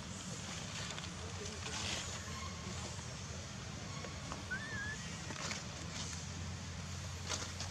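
Outdoor ambience: a steady low hum, with one faint short whistle a little past the middle and a few soft rustles or clicks.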